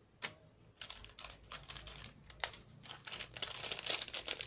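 Clear plastic bag crinkling and rustling as a bundle of paper banknotes inside it is handled. One sharp click comes about a quarter second in, then the crackling grows denser and louder toward the end.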